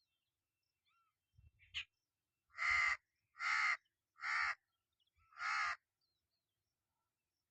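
Hooded crow cawing four times in a row, each caw harsh and about half a second long. A short, faint chirp comes just before the first caw.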